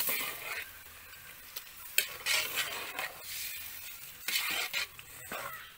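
Wooden spatula stirring a thick chicken curry in an aluminium pot, scraping against the metal in a few separate strokes. There is a sharp knock on the pot about two seconds in.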